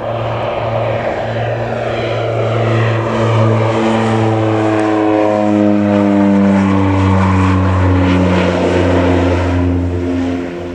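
North American/Rockwell OV-10B Bronco's twin Garrett T76 turboprops droning as the aircraft flies past. The loud propeller drone builds, then drops in pitch about halfway through as the aircraft passes and banks away, and it fades near the end.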